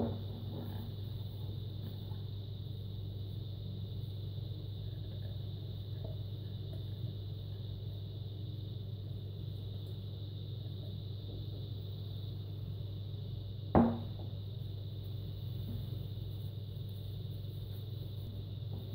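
Steady low hum, with one sharp knock about two-thirds of the way through as the glass mixing bowl meets the countertop.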